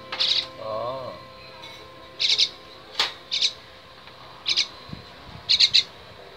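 A young common myna giving short harsh squawks, single or in quick pairs, about once a second. A sharp click sounds about three seconds in.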